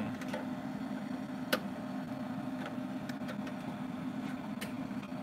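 Domino A-series continuous inkjet printer running with a steady hum, with a few light clicks scattered through it.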